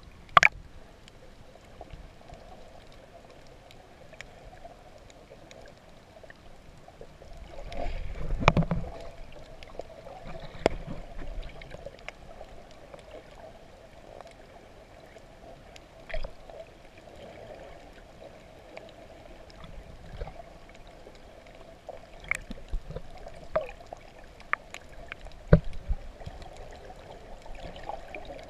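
Underwater sound from a camera held below the surface while snorkeling over a reef: muffled water movement with a faint steady hum and scattered sharp clicks and knocks. A louder low rush of water comes about eight seconds in.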